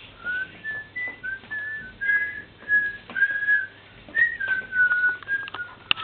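A child whistling a simple tune: a string of clear notes, some short and some held, stepping up and down in pitch and settling a little lower near the end.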